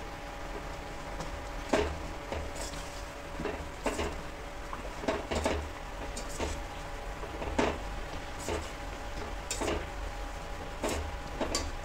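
A steel slotted ladle stirs drumstick (moringa) leaves into dal in a steel pressure cooker, knocking and scraping against the pot's side in irregular clinks about once a second.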